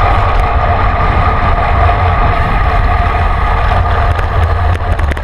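Wind buffeting the microphone of a handlebar-mounted camera on a moving bicycle, a loud steady rumble with road noise and a constant hum over it.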